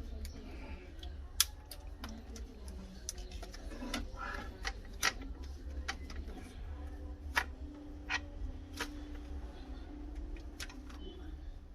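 Scattered sharp clicks and taps of a laptop being handled and taken apart by hand. The loudest click comes about one and a half seconds in, over a low steady hum.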